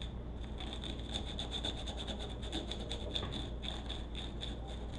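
Abrasive scuff cloth rubbed in quick back-and-forth strokes over a hard plastic cowl, roughening the surface around a crack so the repair resin will grip.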